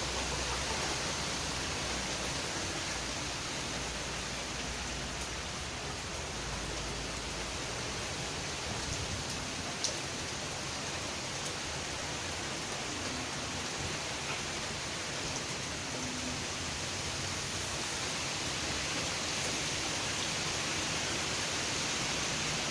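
Steady hiss of heavy rain in a strong wind, even throughout, with one faint click about ten seconds in.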